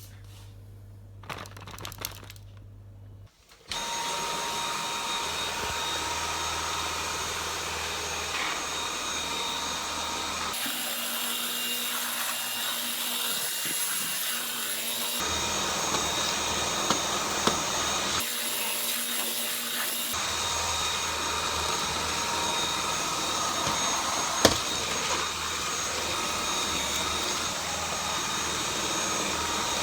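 Dyson V8 cordless stick vacuum starting up about three seconds in, then running steadily: a high motor whine over rushing air. A sharp click comes near the end.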